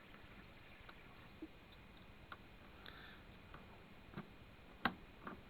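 Scattered small clicks and taps from handling a hi-fi system's buttons and controls, with one sharper click about five seconds in.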